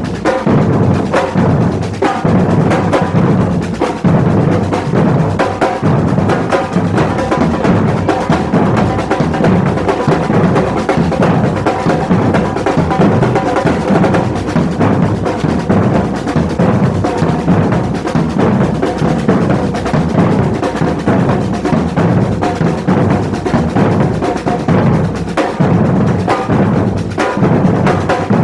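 Samba drum band playing a steady batucada rhythm: deep, regular bass-drum beats under a dense stream of faster, higher drum strokes.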